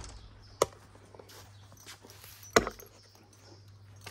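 Two sharp knocks about two seconds apart, over a low steady hum.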